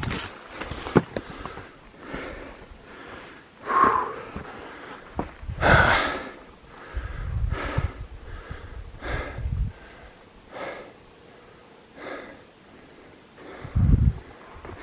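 A hiker breathing hard, in loud, uneven breaths.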